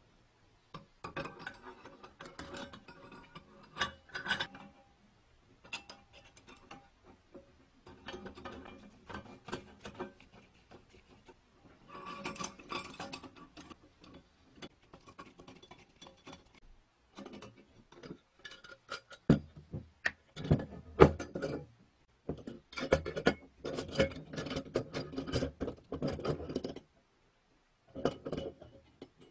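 Steel parts of an antique balance scale being handled and fitted together: irregular clicks, clinks, knocks and light scraping of metal on metal and on the painted base, as a small screw is fitted and the beam is set in place. The sounds come in clusters, the loudest knocks about two-thirds of the way in.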